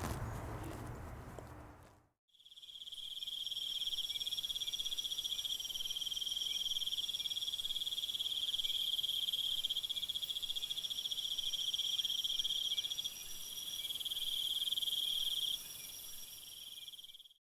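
A dense chorus of crickets chirping in a rapid, even, high-pitched trill that keeps going, starting about two and a half seconds in after a different, noisier sound fades out.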